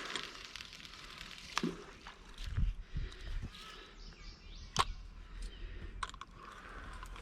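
Outdoor river ambience, a steady hiss of running water, broken by sharp clicks and knocks about a second and a half in, near five seconds and near six seconds, and a few dull low thumps around the middle.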